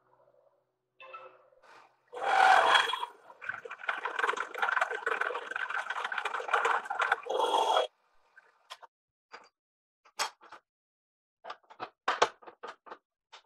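Milling machine end mill cutting a notch into the wall of a rectangular steel tube: a dense cutting noise full of rapid chatter that starts about two seconds in and stops suddenly near eight seconds. A few scattered clicks and taps follow.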